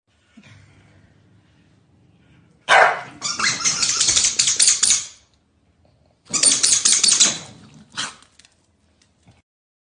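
Dogs snarling and barking in a scuffle over a toy, in two loud bouts about three and six seconds in, with a short burst just after.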